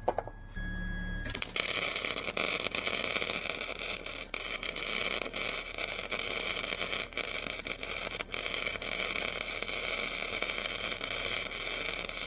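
Flux-core wire welder arc crackling and sizzling in one continuous bead of about eleven seconds, laid with .030 flux-core wire. A short low hum comes just before the arc catches, and the arc cuts off abruptly at the end.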